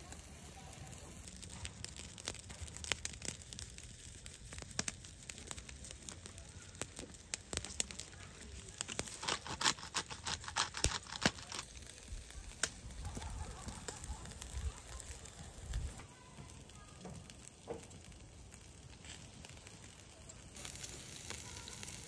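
Charcoal grill crackling and popping under beef and mushrooms on a wire mesh grate, with many sharp pops that come thickest around ten seconds in and then thin out.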